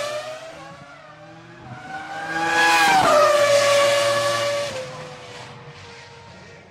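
Ferrari F2004's 3.0-litre V10 Formula 1 engine passing at high revs. It swells up, its pitch drops sharply as it goes by about three seconds in, then it fades away on a steadier note. The tail of an earlier pass dies away at the start.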